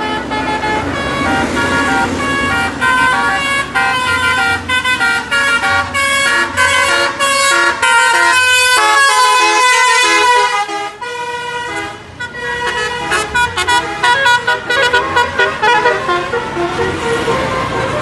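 Telolet bus horns: a set of tuned air horns playing a fast melody of short notes that change pitch in quick succession. The horns drop in loudness about eleven seconds in, then pick up again.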